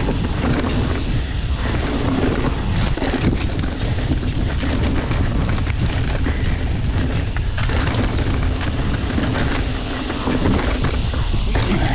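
Mountain bike riding fast down a dirt singletrack: constant wind buffeting on the camera microphone over the rumble of knobby tyres on dirt and rock, with frequent rattles and knocks from the bike over the rough trail.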